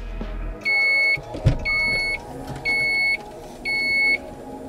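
Car liftgate warning beeper sounding four evenly spaced beeps, about one a second, as the rear hatch opens, with one thump between the first two beeps.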